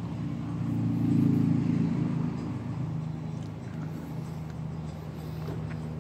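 A low, steady engine hum. It grows louder about a second in, then eases back to a steady drone.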